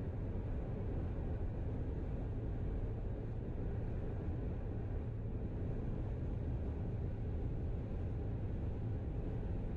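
Steady low rumble of road and engine noise heard inside a car cruising at highway speed.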